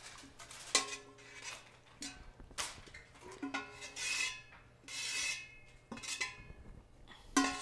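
Kitchen utensil clinking and scraping against metal cookware while marinated goat meat is scooped into a roasting tray, several sharp clinks, some ringing briefly.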